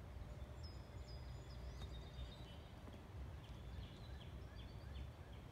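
Faint outdoor background: a steady low rumble, with small birds chirping faintly in short high notes that come in a quick series in the second half.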